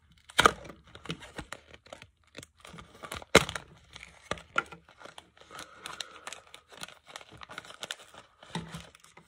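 Fishing lure packaging being torn open and crinkled by hand: a run of irregular crackles and snaps, the loudest a little under half a second in and again at about three and a half seconds.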